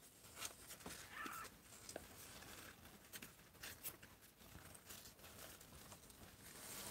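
Faint rustling and scattered light clicks of a hand moving over newborn kittens, their fur and the cloth and cardboard of their box, otherwise near quiet.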